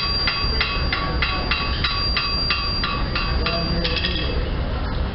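Blacksmith's hammer striking red-hot iron on an anvil, about three blows a second, each with a bright metallic ring, stopping about four seconds in. A steady low rumble runs underneath.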